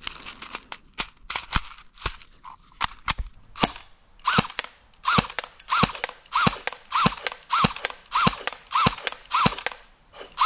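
Electric airsoft Scorpion submachine gun (Tokyo Marui) firing semi-auto: a string of light, small-sounding shots, irregular at first, then steady at about one and a half a second. From about four seconds in, each shot is followed by a short beep from the electronic scoring target registering the hit.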